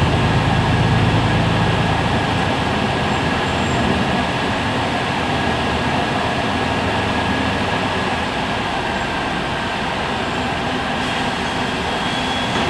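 Heuliez GX 137 city bus idling at a stop: a steady engine hum with its running gear and fans, the low hum strongest at first and settling after about two seconds, with a thin steady high whine throughout.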